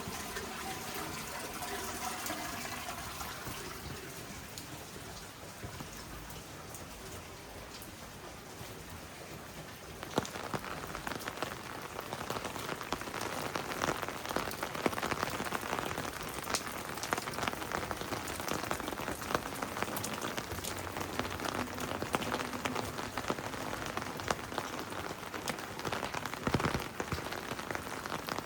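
Heavy rain falling. About ten seconds in it becomes louder and denser, with many close drops ticking on a surface.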